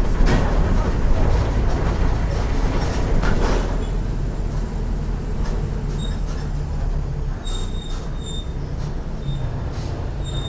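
Mercedes-Benz OF 1418 bus's front-mounted diesel engine running as the bus drives, a steady low rumble. Body rattles and knocks sound over it for the first few seconds, then the rumble eases slightly, with faint high squeaks near the end.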